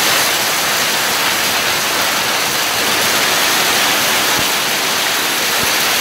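Heavy rain and wind in a storm: a loud, steady rushing hiss that does not let up.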